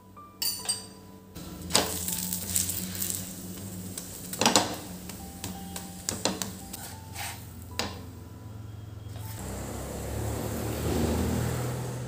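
A ghee-brushed paratha frying on a tawa, sizzling, while a wooden spatula presses it and knocks against the pan several times.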